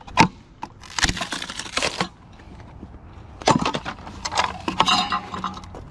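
Scrap ceiling fan parts being broken apart by hand: a sharp crack, a rough scraping rasp about a second in, then several hard knocks and snaps.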